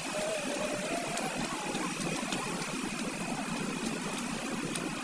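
Steady outdoor ambience: an even hiss with a faint high steady tone running through it and no distinct events.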